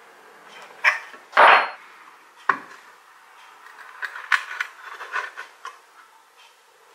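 Metal knocks and taps on the steel lid of a Land Rover Series oil-bath air filter as a steel punch is worked in its centre hole: three sharp knocks, the second the loudest and longest, then a patter of lighter clicks.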